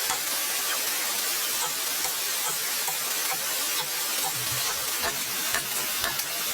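Steady hiss with scattered light crackles and ticks.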